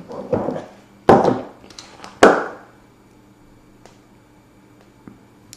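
Two sharp knocks about a second apart as a paintbrush works drying black acrylic paint on a glass palette; the paint has dried and is hard to pick up.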